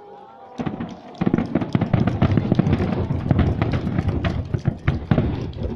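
Aerial fireworks shells bursting in rapid succession: a dense barrage of bangs and crackles begins about half a second in and runs on without a break, thinning out near the end.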